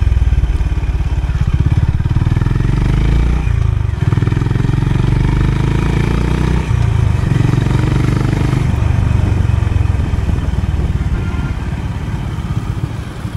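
Honda CB350 RS motorcycle's single-cylinder engine running under way, a steady rapid thump of exhaust pulses. The engine note dips briefly about four seconds in and again about seven seconds in, and eases off slightly near the end.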